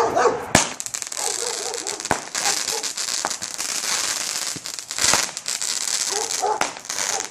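A small 16-shot consumer firework cake firing: several sharp shots at irregular intervals, over continuous crackling from the bursts.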